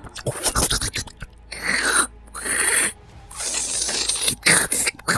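Ragged, breathy gasps and sharp noisy breaths, several in a row, mixed with wet biting and sucking sounds.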